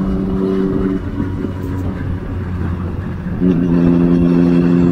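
Triumph Street Triple 675's inline three-cylinder engine through a Two Brothers aftermarket exhaust, droning steadily at highway cruising speed over wind rush. The drone drops away about a second in and comes back abruptly, slightly lower in pitch, about three and a half seconds in. The sound is very loud.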